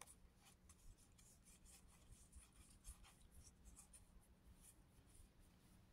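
Very faint rubbing and irregular soft ticks of trading cards being slid and flipped through by hand.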